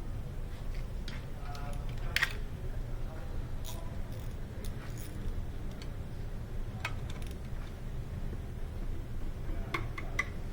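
Scattered sharp metallic clicks and clinks of hand tools and parts being handled while working on a car's front brakes, over a steady low hum.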